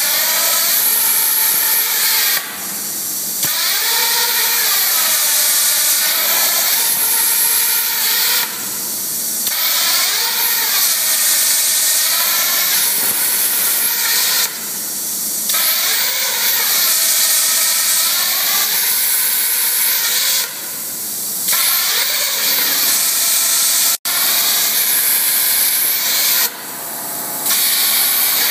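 Plasma cutter's arc hissing loudly as it burns holes in a metal tube. The hiss drops away for about a second roughly every six seconds, five times, as one hole is finished and the torch moves to the next.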